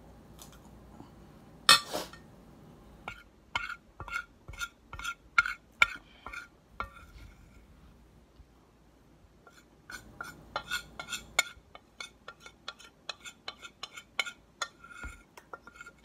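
Eating cornstarch chunks from a plate with a spoon: a loud crunch about two seconds in, then runs of short, sharp crunches and clinks, two or three a second, with a pause of a couple of seconds in the middle.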